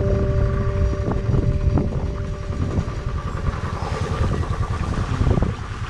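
Motorcycle engine running as the bike is ridden, a low uneven pulse, with a few sharp knocks along the way.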